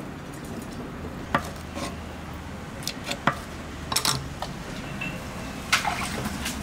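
Irregular clinks and knocks of metal kitchenware, about eight in all, the loudest near the start and about two-thirds of the way in, over a steady low hum of kitchen background noise.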